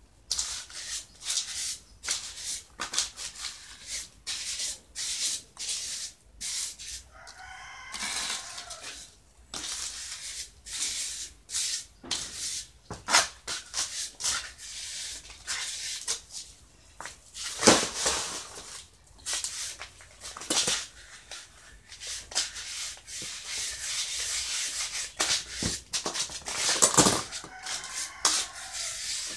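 A trowel scraping and dabbing wet cement-and-gravel mix in quick, irregular strokes. A rooster crows in the background twice, about eight seconds in and near the end.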